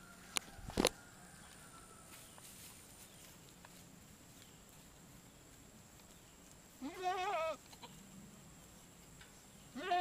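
A goat bleating twice, each a wavering call under a second long, the first about seven seconds in and the second just before the end. Within the first second there are two sharp knocks.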